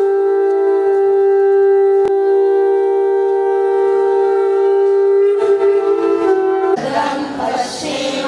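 Several conch shells blown together in one long, steady, blaring tone, with a brief click about two seconds in. About seven seconds in, the conchs stop and the voices of a large crowd take over.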